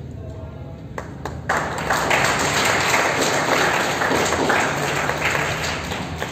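Audience applauding: a few single claps about a second in, then a burst of clapping that fades off toward the end.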